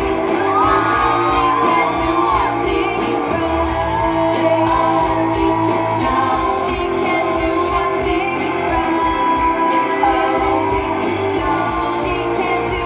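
Recorded pop song playing loud, with singing over a steady beat.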